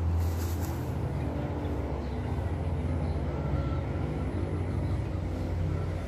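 Suzuki Raider 150 Fi motorcycle's single-cylinder engine idling steadily, with a brief hiss near the start.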